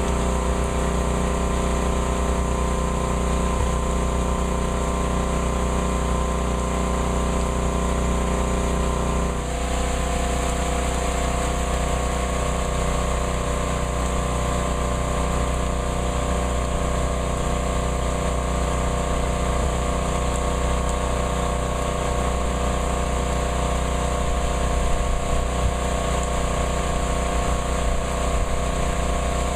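Heavy rain hissing steadily under a droning hum of several held tones, which all change at once about nine and a half seconds in.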